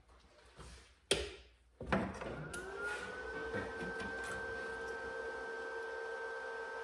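Two sharp clacks about one and two seconds in, then a small stick welder's cooling fan spins up with a whine that rises briefly and settles into a steady hum as the machine is switched on.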